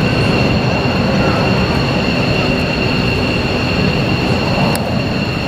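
Jet aircraft engine noise: a steady rumble with a continuous high whine, unchanging throughout.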